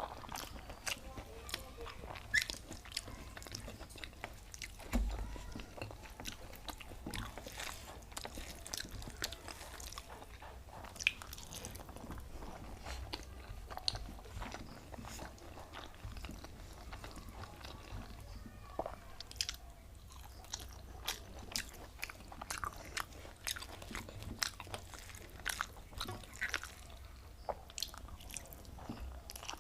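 A person eating rice with cauliflower and papaya curry close to the microphone, as in a mukbang: chewing, with a steady run of small wet mouth clicks and smacks.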